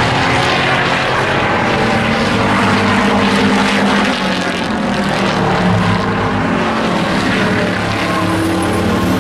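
Engines of several hobby-class pickup race trucks running hard in a pack on the track, a loud steady drone of overlapping engine notes that rise and fall slightly.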